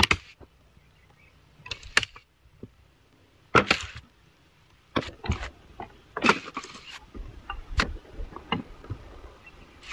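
A series of irregular sharp knocks and cracks, about a dozen strikes spaced unevenly, the loudest about three and a half seconds in.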